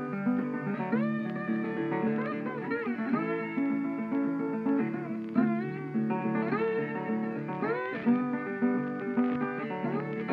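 Background music: acoustic guitar, plucked and strummed, with sliding notes.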